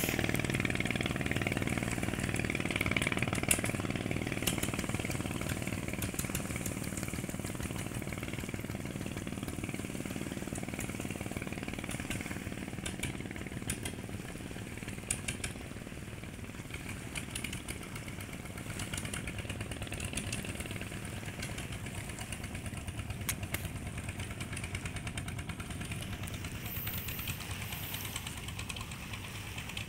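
Motors of fibreglass speedboats running at speed, a steady drone that fades over the first dozen seconds or so, swells slightly a little past the middle, and stays faint.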